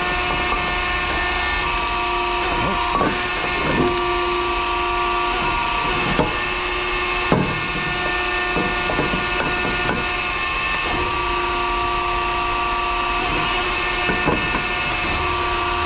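Steady machine noise with a hiss and a constant hum, broken by a few sharp metallic knocks.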